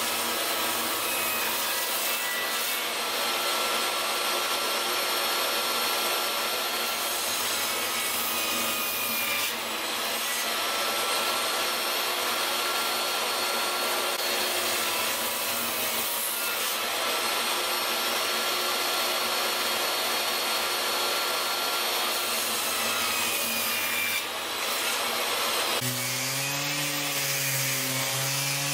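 Table saw running and cutting wood, a steady loud whirring noise with a few brief dips. About three seconds before the end it gives way to a random orbital sander with a dust-extraction hose, a lower humming motor.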